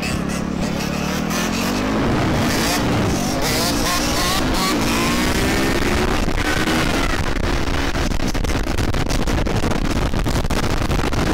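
Dirt bike and ATV engines revving and accelerating, their pitch climbing over the first few seconds. The engines then run on at speed, mixed with rough gusty noise, typical of wind hitting a microphone on a moving vehicle.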